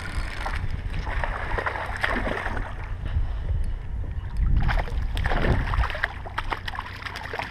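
A hooked small bass being reeled in, thrashing and splashing at the water's surface in the second half, over a steady low rumble of wind on the microphone.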